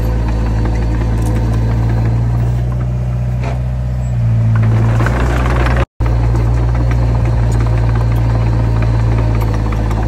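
Heavy diesel engine of earthmoving machinery running steadily with a deep hum. It picks up and gets louder for a second or two around four seconds in, as if taking load. Just before six seconds in the sound cuts out for an instant, then resumes.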